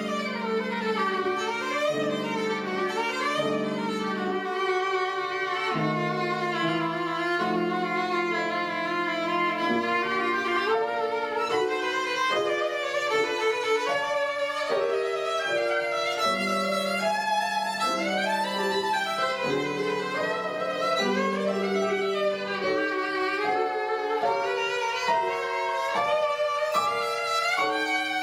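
Violin playing a slow, lyrical melody with vibrato, over lower held notes.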